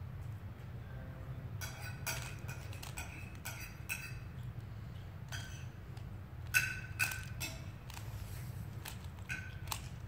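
Cutlery and dishes clinking at irregular intervals, some clinks ringing briefly, mixed with the quick clicking of a 3x3 Rubik's cube being turned, over a steady low hum. The loudest clinks come a little past halfway.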